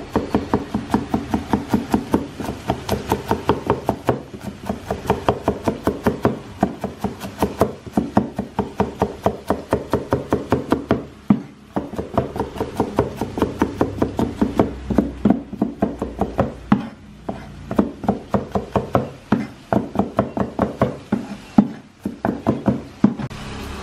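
A cleaver chopping garlic cloves on a wooden board: rapid, even knocks, about five a second, with brief pauses about eleven and twenty-one seconds in, mincing the garlic fine.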